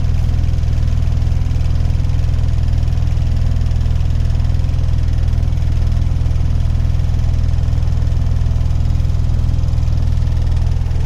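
Truck's diesel engine running steadily, heard from inside the cab as an unchanging low drone.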